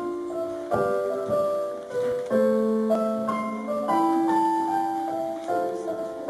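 Piano playing a slow melody over chords, each note ringing on and fading.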